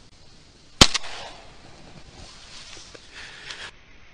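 A single shotgun shot a little under a second in, followed a fraction of a second later by a fainter crack, fired at a passing flock of ducks.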